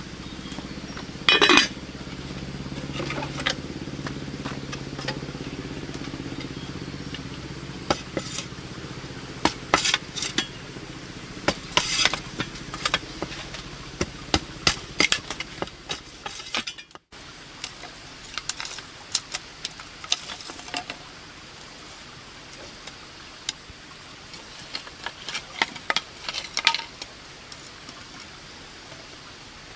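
Scattered clinks and knocks of a metal cooking pot and its lid and of bamboo sticks being handled at an open fire pit. A loud, sharp falling squeal comes about a second and a half in, and a low steady hum fades out over the first several seconds.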